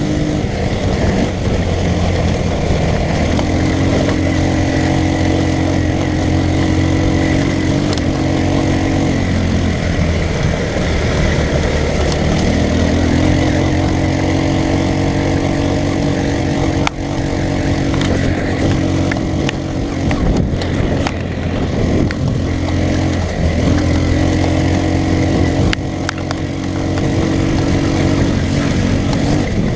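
Off-road go-kart's small engine running hard, its pitch climbing and dropping several times as the throttle is opened and eased off, with a few knocks.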